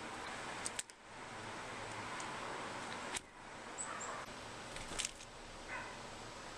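Steady background hiss with a few sharp clicks and a couple of faint, brief high chirps from black-capped chickadees.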